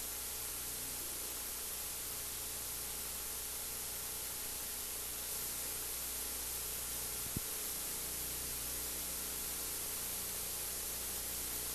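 Steady hiss of an old videotape soundtrack with a faint low hum underneath; a single faint click about seven seconds in.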